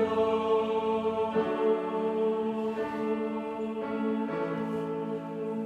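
Choir singing slow, sustained chords that change to a new chord every second or so.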